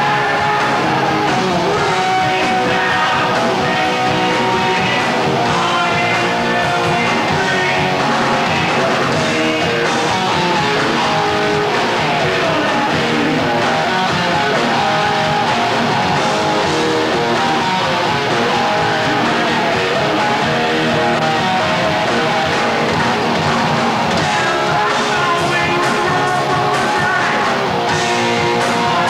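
Heavy metal band playing live: electric guitars and drums at a steady loud level, with a singer's voice over them.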